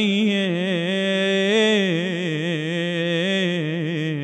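A man's solo voice chanting an Arabic Muharram naee (lament), holding the end of a sung line as one long melismatic note with slow wavering ornaments, its pitch settling lower about halfway through. No instruments accompany it.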